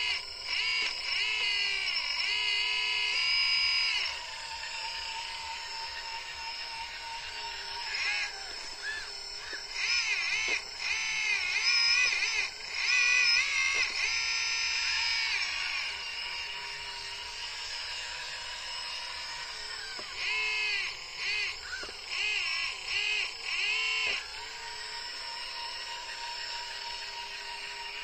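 1/14 Liebherr RC hydraulic excavator's pump and valves whining, the pitch rising and bending in spells as the boom, bucket and swing move, with a quieter steady hum between movements.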